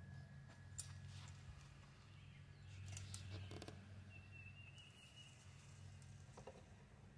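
Near silence: faint rustles and scrapes of a long-handled tool working into a tangled pile of vines, with a bird's brief high call about four seconds in.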